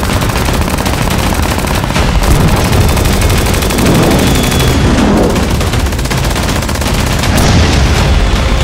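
Rapid, continuous machine-gun fire from WW2 fighter planes in a dogfight, with a plane's engine sweeping past about four seconds in.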